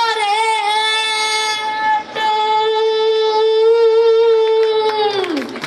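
A horn blown on stage in two long held notes. The first breaks off about two seconds in, and the second drops in pitch as it dies away near the end.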